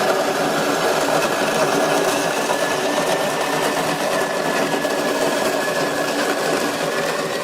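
Cuisinart electric snow cone maker running and crushing ice: a steady motor whine over dense grinding.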